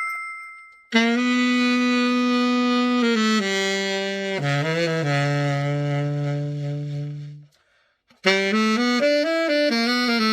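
CT-500L tenor saxophone, freshly overhauled after heavy dent repair, being play-tested. After a brief ring at the start, it plays long held notes that step down into the low register, stops for about a second, then plays a quick run of notes.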